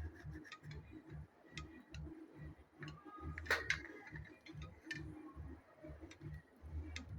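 Light clicks and taps of cylindrical lithium cells and tools being handled during soldering, with one louder click about halfway through. A faint low pulsing runs underneath, about twice a second.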